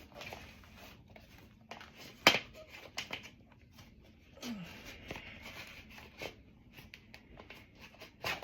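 Irregular clicks and knocks of hands and a tyre lever working a bicycle tyre bead back onto the rim, with one sharp click about two seconds in and a short squeak about halfway through.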